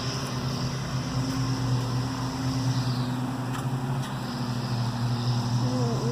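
A steady low mechanical hum, like a motor running, with a faint click or two a little past the middle.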